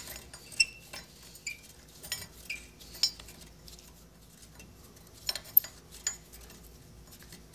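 Rusted, threaded blade tilt shaft and its handwheel on an old Sears contractor table saw being turned out of the housing by hand: irregular metallic clinks and ticks, some ringing briefly, with a lull in the middle.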